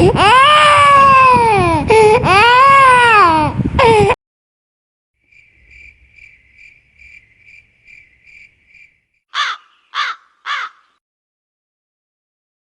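A sick young child crying and wailing in distress for about four seconds before the sound cuts off abruptly. After a pause comes a faint, even chirping, about two to three a second, then three short, loud, harsh calls about half a second apart.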